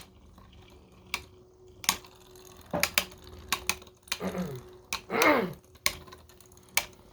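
3D-printed Beyblade spinning tops clashing in a plastic stadium: irregular sharp plastic clacks as they hit each other and the stadium wall, with two short whirs falling in pitch about four and five seconds in.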